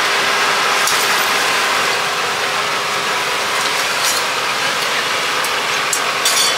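Steady hiss of egg-crepe batter with egg and scallions sizzling on a flat-top griddle, under a constant low hum. Short scrapes and clicks of a metal spatula on the griddle come about a second in, about four seconds in, and just after six seconds.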